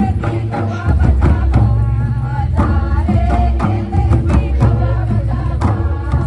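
Live folk music: a group of voices singing a chant-like song over repeated strokes of large two-headed barrel drums with a deep boom.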